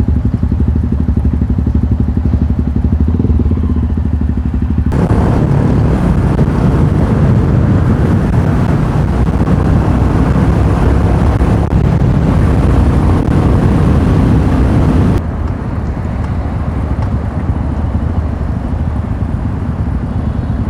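Royal Enfield Meteor 350 single-cylinder engine running steadily while riding, with an even low thumping beat. A loud rushing noise comes in suddenly about five seconds in and cuts off abruptly about fifteen seconds in.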